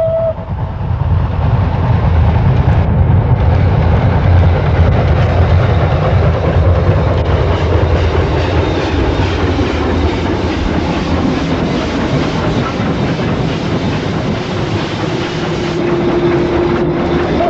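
Double-headed steam train passing close by, led by Südbahn class 29 No. 671 with 56.3115, both working hard: a dense, loud rumble of exhaust and running gear. A steady low tone joins near the end.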